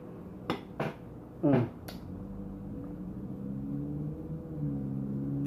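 Close-up eating sounds: wet lip-smacking and chewing clicks, and a short voiced 'mm' about one and a half seconds in. After that comes a low, steady hum that grows louder toward the end.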